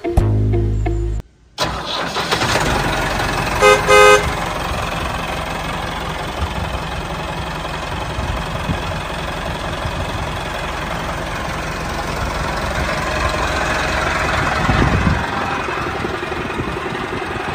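Tractor engine running steadily, with two quick horn toots about four seconds in.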